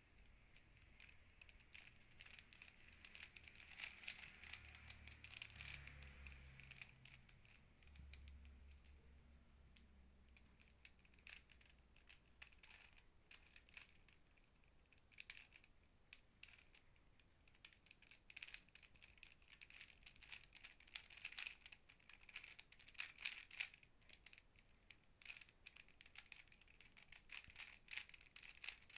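Plastic 3x3 Rubik's cube being turned by hand: quiet, rapid clicks and clacks of the layers snapping round, coming in flurries with short pauses between them.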